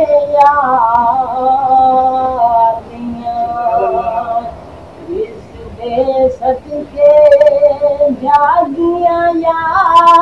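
A man singing a naat unaccompanied, drawing out long, ornamented held notes, dipping quieter through the middle before the voice swells again.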